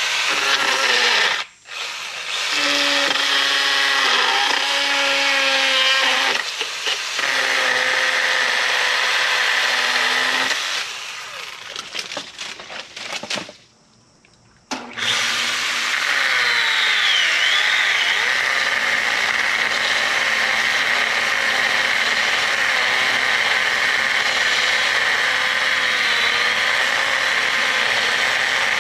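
Stihl battery-powered mini chainsaw running as it cuts into a thick lilac branch, its pitch sagging and wavering as the chain works through the wood. It cuts out briefly about a second and a half in, fades and stops for about a second near the middle, then starts again and runs steadily.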